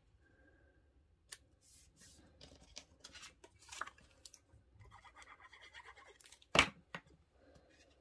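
Designer paper strips being stuck down onto cardstock panels: scattered rustles, scrapes and rubbing as the paper is handled and pressed flat, with one sharp tap about six and a half seconds in.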